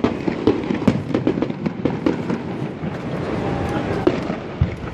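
Fireworks going off: a rapid, irregular string of sharp bangs and crackles, several a second.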